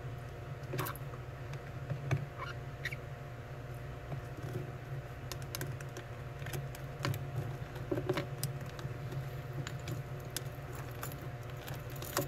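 Scattered small clicks and scratches as a land hermit crab's legs and shell knock against hard terrarium decor while it climbs, over a steady low hum.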